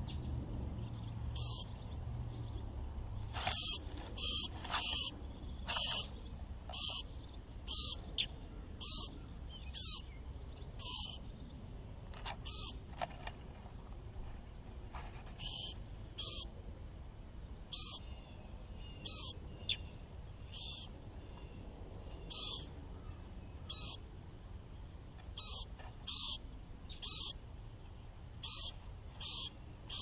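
Mockingbirds at the nest calling: a steady series of short, high-pitched calls, repeated about once a second.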